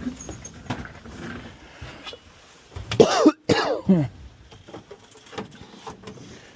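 A man coughing and clearing his throat twice, about three seconds in, amid scattered light clicks and knocks of handling.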